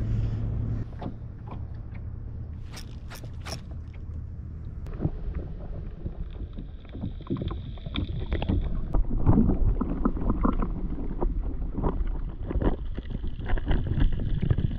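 Water and wind noise around a fishing kayak, with a steady low rumble and scattered knocks and clicks, several sharp ones about three seconds in and more irregular ones through the second half.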